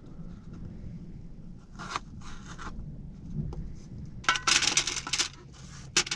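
Kitchen knife cutting potatoes into chips on a plastic chopping board with short scraping strokes. About four seconds in comes a louder burst of scraping and clatter as the cut chips are slid off the board onto a paper-lined tray.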